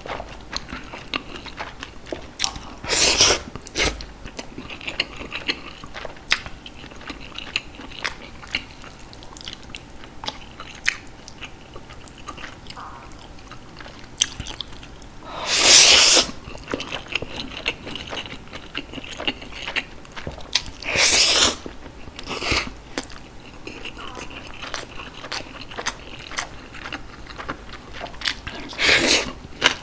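Close-miked mouth sounds of eating Jjapaghetti noodles and green onion kimchi: steady wet chewing and biting, with four louder bursts of about a second each spread through.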